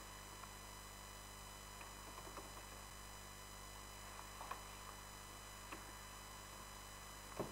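Quiet steady electrical hum and hiss from the recording setup, with a few faint computer-keyboard key clicks as a command is typed; the loudest click comes near the end.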